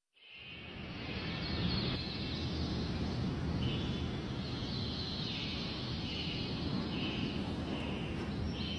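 Outdoor nature ambience fading in: a steady rushing background, like wind, with birds calling in short chirps about once a second.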